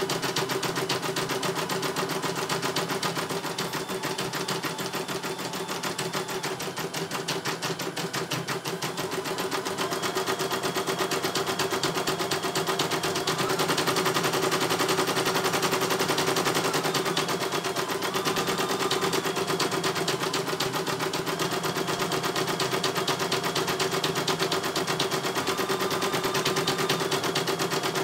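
CNY E900 computerised embroidery machine stitching a design: a very fast, even run of needle strokes over a steady motor hum, with fainter whining tones that change pitch now and then.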